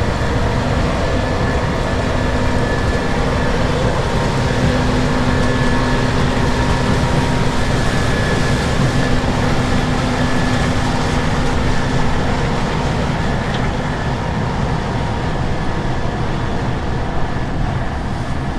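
Case IH Axial-Flow combine harvester running steadily while harvesting corn: a deep, continuous machinery rumble with a few steady whining tones from the engine and threshing rotor.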